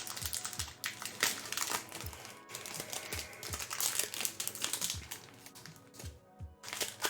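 Crinkling and rustling of Pokémon card booster pack foil and cards being handled in quick, irregular bursts, over quiet background music with a regular low beat.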